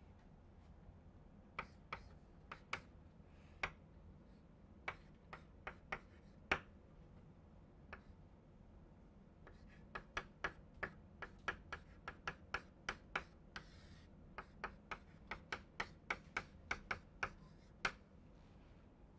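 Chalk tapping and clicking against a blackboard as equations are written: scattered sharp clicks at first, then a quick run of them, about three a second, through the second half.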